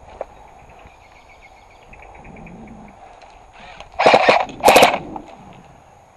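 Airsoft gun fired in two short rapid bursts, one right after the other, about four seconds in.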